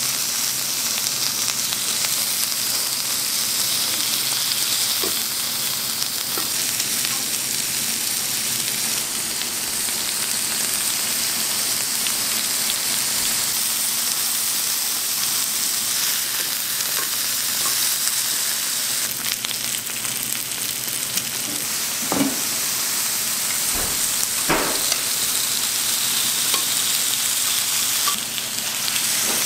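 Thick pieces of black pork sizzling steadily on a slotted grill plate, the hiss of frying fat, with a couple of sharp clicks about two-thirds of the way through.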